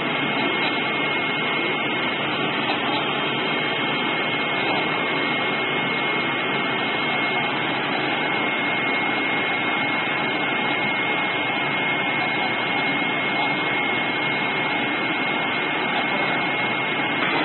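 Steady rush of a flatbed CNC cutting plotter's vacuum suction blower holding carbon fabric to the table, with a steady high whine over it.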